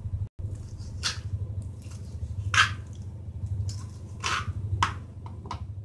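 Knife cutting boiled soya chaap into pieces on a wooden cutting board: a soft squish and knock each time the blade goes through to the board, about five times, over a steady low hum.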